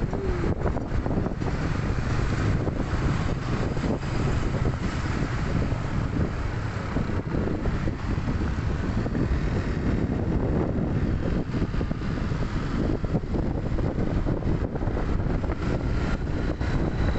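Steady wind buffeting on the microphone during a ride through street traffic, with engine and traffic noise underneath.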